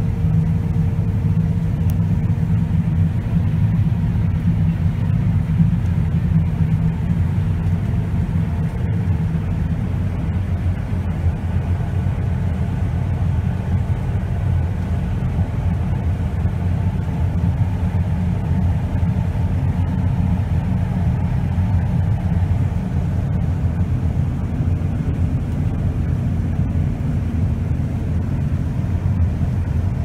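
John Deere S690 combine harvesters running while cutting wheat: a steady, loud, low machinery rumble of engine and threshing works, with a faint whine on top.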